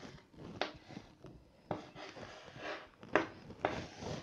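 Chalk writing on a blackboard: faint scraping strokes with a few sharper taps where the chalk meets the board.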